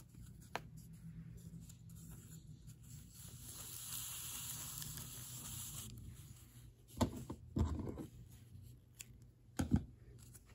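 Quiet sewing handling sounds as thread is clipped and a new length is taken from the spool: a few small clicks, a soft rustle for a few seconds in the middle, then several taps and knocks near the end.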